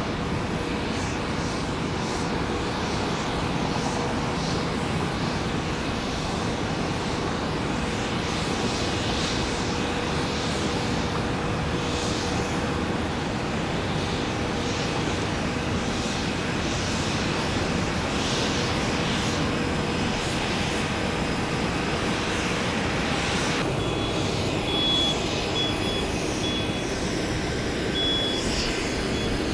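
Bombardier Challenger 350 business jet's twin turbofan engines, a steady jet noise as it lands and rolls out. About 24 s in, this gives way to a vehicle's reversing beeper, a high beep repeating on and off.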